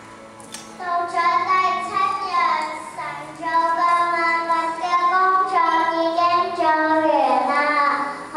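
A young child singing into a microphone over a PA. The voice comes in about a second in and carries a melody of held notes that glide between pitches.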